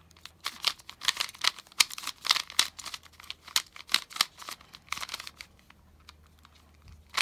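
Oversized stickerless QiYi 3x3 speed cube being turned fast by hand during a solve: a rapid, uneven run of plastic clacks and rattles as the layers snap round, with a short lull near the end.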